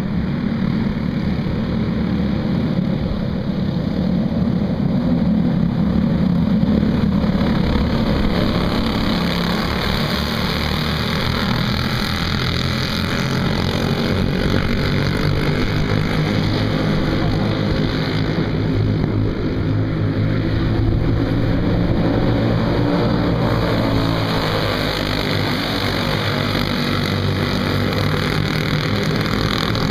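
A pack of dirt-oval racing go-karts with Briggs & Stratton Animal single-cylinder four-stroke engines running at race speed. Several engine notes overlap and shift in pitch as the karts go around the track.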